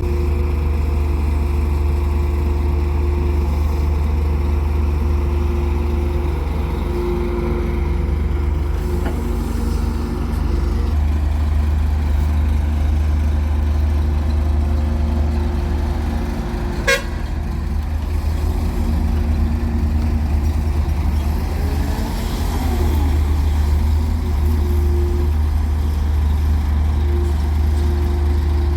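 Heavy excavator diesel engine running steadily under load, with a deep rumble and a steady drone, a brief rise and fall in pitch about two-thirds of the way through, and one sharp click a little past the middle.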